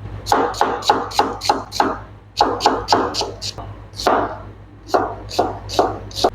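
Knife chopping on a cutting board: sharp strokes about three a second, in short runs broken by brief pauses.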